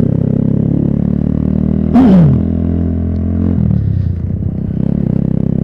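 Suzuki motorcycle engine running steadily as the bike is ridden. About two seconds in there is a short loud sound that falls in pitch, and a little past halfway the engine note shifts.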